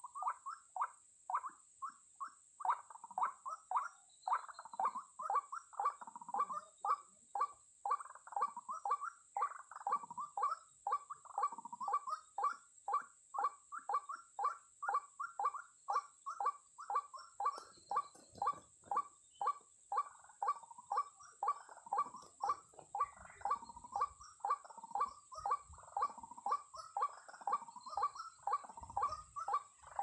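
White-breasted waterhen (ruak-ruak) calling: an unbroken, evenly paced run of repeated 'kwak' notes, about two a second.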